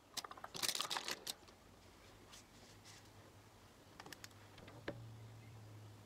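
Light clicking and clatter of makeup things being handled on a table, such as brushes and a compact eyeshadow palette. A quick run of clicks comes near the start and a few single clicks follow around four and five seconds in, over a faint low hum.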